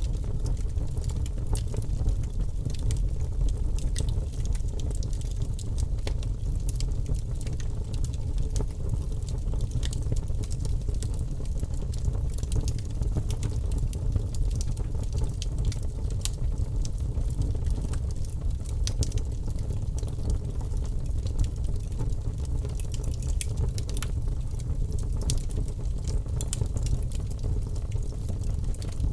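Wood fire in a fireplace burning steadily: a low rumble of flames with frequent small crackles and pops.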